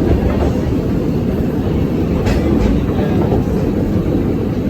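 Narrow-gauge steam train running along the track, heard from aboard a passenger car: a steady low rumble of wheels on rail, with a few sharp clacks a little past halfway.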